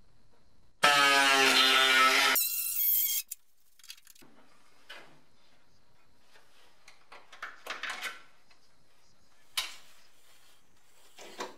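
Pneumatic air drill running at a steady pitch for about a second and a half while drilling a hole through the car's sheet-steel floor panel, then a higher whine as it winds down. After that come faint handling clicks and a few short knocks.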